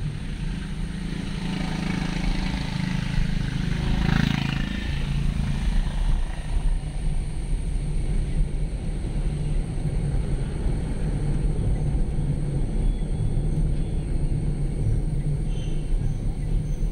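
Car engine and road noise heard from inside the cabin while driving: a steady low drone. The engine note is stronger for the first few seconds and drops away about five seconds in.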